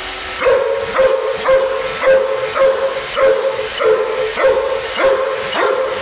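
German shorthaired pointer giving a steady run of short, whining yelps, about two a second, starting about half a second in.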